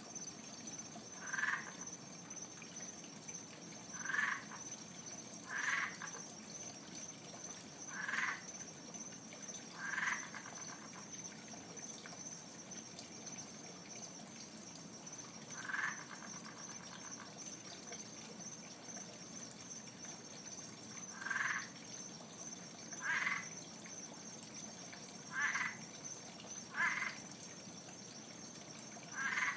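A frog calling: eleven short calls at uneven gaps of roughly one to six seconds. A steady high-pitched whine runs behind them.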